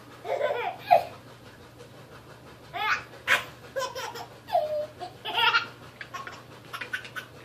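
A baby laughing: several short bursts of belly laughter with quieter gaps between them.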